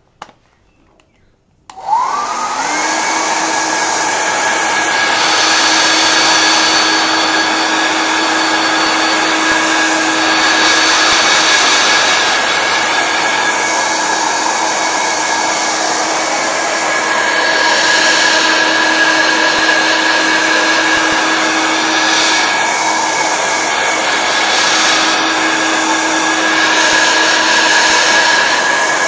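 Electric hair dryer switched on about two seconds in, its motor whining up to speed and then blowing steadily.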